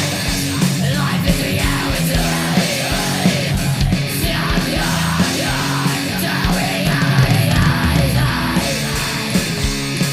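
Speed/thrash metal recording: distorted electric guitar and bass riffing over fast, pounding drums.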